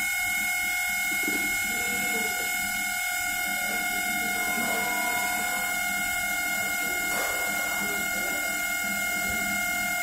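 LG microwave oven running with its cover off, its fan motor giving a steady whining hum made of several held tones. The noisy fan motor is faulty and due for replacement.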